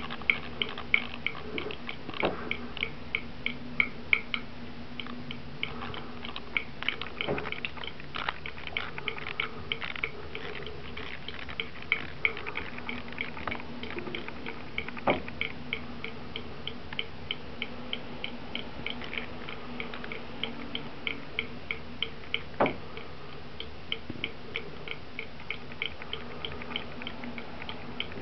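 A cat lapping water from a bathroom tap: quick, even wet clicks, about four a second, with a few louder single clicks now and then.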